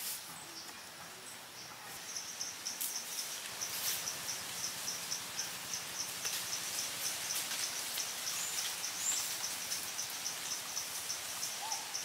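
An insect chirping in a steady, even rhythm, about four or five chirps a second, starting about two seconds in, over a hiss of forest background. A few light knocks and clicks of wooden sticks being handled.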